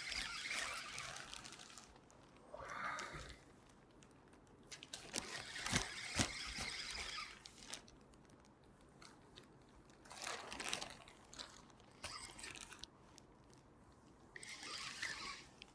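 Irregular bursts of rustling and crunching handling noise, six or so, with a few sharp clicks in the loudest burst about five to seven seconds in.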